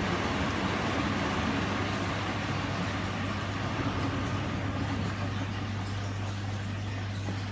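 Miele W144 front-loading washing machine spinning a wet, very absorbent load to throw out the bulk of the water: water swishing in the turning drum over a steady low hum. The swishing fades in the second half.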